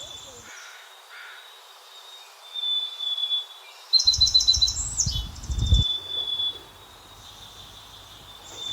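Birds calling: a thin, high whistled note repeats every few seconds, and a quick run of chirps ending in a rising-and-falling glide comes about four seconds in. Low rumbling noise is heard under the chirps.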